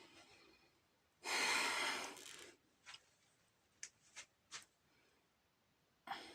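A person breathing with difficulty, gasping for air during an asthma attack. One long, loud breath comes about a second in, then several short sharp sounds, and another brief breath near the end.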